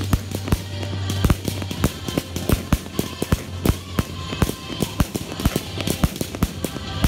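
Fireworks going off in quick succession: many sharp bangs, several a second, from aerial bursts, with music playing underneath.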